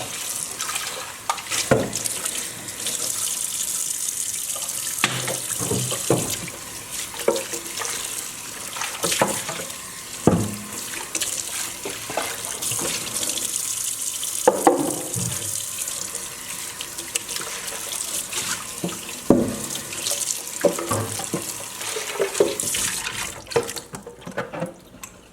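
Kitchen tap running into the sink while a fridge shelf is rinsed under it, with occasional knocks and clatters as the piece is handled. The water shuts off near the end.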